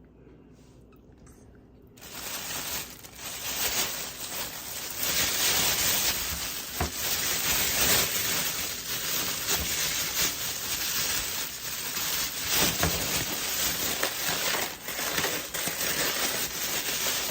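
Continuous crinkling and crushing with many small crackles, starting abruptly about two seconds in.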